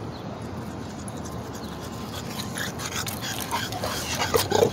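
French bulldog panting close by, a quick run of short breaths that sets in about halfway through and grows busiest and loudest near the end.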